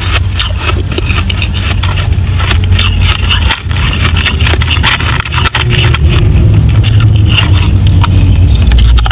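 Crushed ice crackling and scraping as fingers dig through it in a clear plastic tray, with many small sharp clicks and a steady low rumble underneath.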